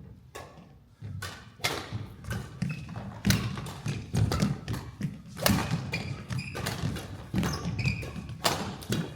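Badminton singles rally: sharp racket strikes on the shuttlecock at irregular intervals, mixed with players' footsteps thudding on the court.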